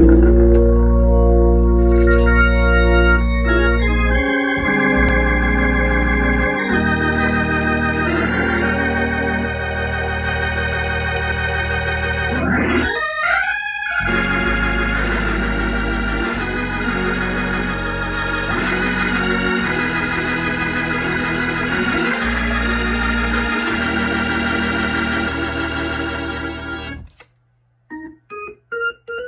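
Organ chords played through a Leslie 122 rotating speaker, with the horn and bass rotor spinning. Its amplifier has been freshly recapped and fitted with new J&J tubes. Sustained chords change every couple of seconds, with a quick glide in pitch about halfway through, then stop suddenly near the end, followed by a few short stabbed notes.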